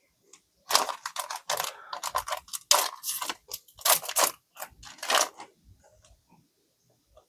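Trading cards being handled and flipped over: a quick run of crisp rustling and snapping noises lasting about four and a half seconds, then only faint occasional touches.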